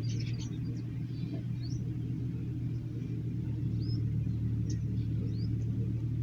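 A steady low hum throughout, with faint high bird chirps over it: a cluster of short rising chirps right at the start, then single chirps every second or so.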